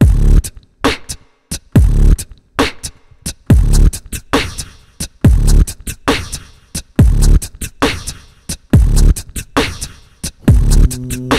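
Vocal beatbox beat into a handheld microphone, layered on a Boss RC-505 loop station: a deep kick about once a second with sharp hi-hat and snare clicks between. Near the end a steady low bass tone joins the beat.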